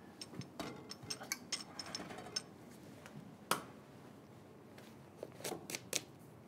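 Light clicks and taps of small parts being handled: a quick run of clicks in the first couple of seconds, one sharper click about three and a half seconds in, and a few more near the end.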